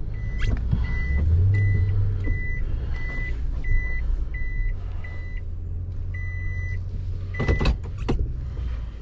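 Toyota pickup's in-cabin reversing beeper over the engine and road rumble, maneuvering into a parking space: short high beeps at about two a second, then one longer beep about six seconds in. Two sharp clunks near the end.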